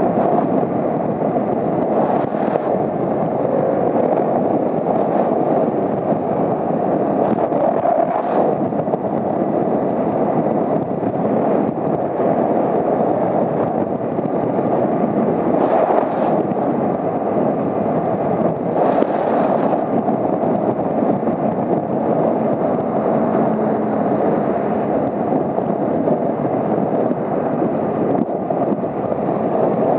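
Steady wind rush buffeting the microphone of a motorcycle riding at speed, with engine and road noise blended underneath.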